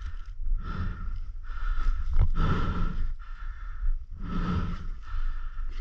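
A person breathing hard, three long breaths a couple of seconds apart, over a steady low rumble.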